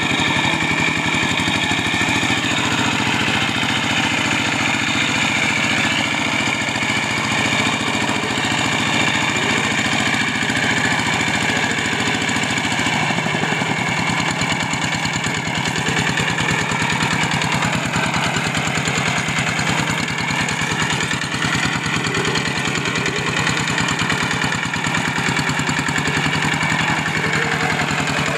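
Kubota G3000 two-wheel hand tractor's single-cylinder diesel engine running steadily under load as it ploughs through deep, waterlogged paddy mud. Its note shifts slightly about halfway through.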